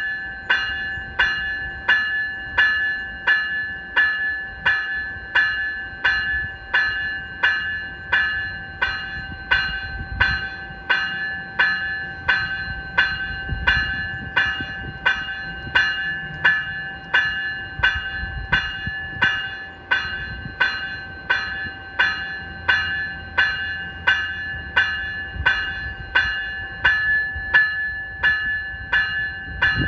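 Graham-White electronic bell on an NCTD Coaster cab car ringing steadily, struck a little under twice a second, each stroke a bright bell tone that rings out and fades before the next. A faint low rumble lies underneath.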